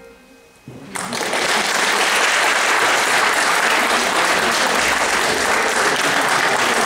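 Audience applauding, breaking out just under a second in as the last piano chord dies away, then clapping steadily.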